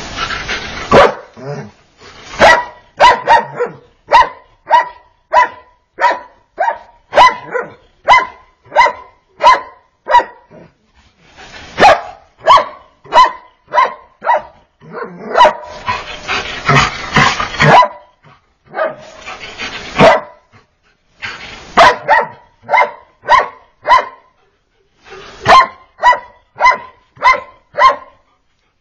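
Dog barking at a snake in long runs of sharp, rapid barks, about two a second, broken now and then by pauses of about a second.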